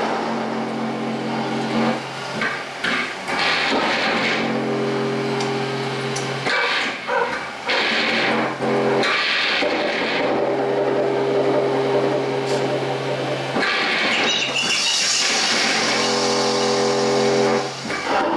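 Live electronic noise performance: low droning tones held for a few seconds at a time, cutting in and out, with stretches of harsh hiss and crackle between them, the loudest hiss about three-quarters of the way through.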